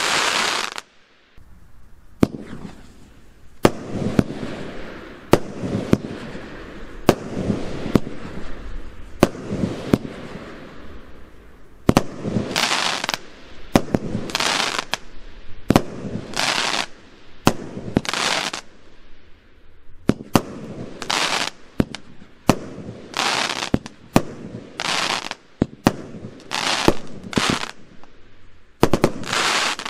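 Consumer fireworks battery (cake) firing shot after shot. Sharp bangs come about once a second, each followed by a short rush of noise as the shells burst into stars.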